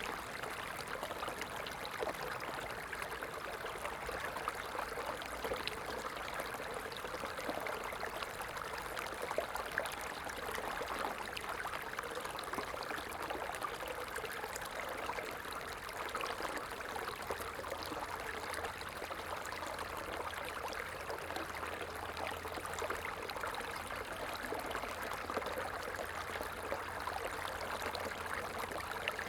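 Running water of a small stream, a steady babbling and trickling flow with fine splashes.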